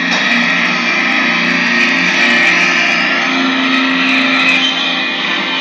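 Loud, unbroken wall of distorted electric guitar noise and feedback, with several held droning tones; a low drone settles and holds from about halfway through.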